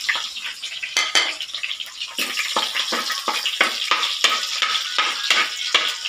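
Minced garlic sizzling in hot oil and pork fat in a metal pan. A metal spoon stirs and scrapes against the pan, about three strokes a second from about two seconds in.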